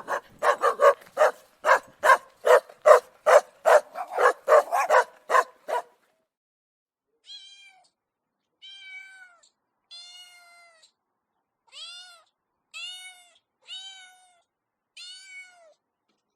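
A dog barking rapidly, about three barks a second, for the first six seconds. After a short pause, a cat meows seven times, each meow rising then falling in pitch.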